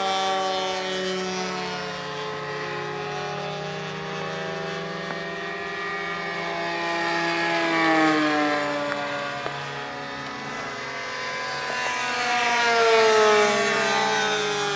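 Engines of radio-controlled model airplanes droning in flight, more than one at once, their pitch sliding up and down as they fly past. The loudest passes come about 8 and 13 seconds in.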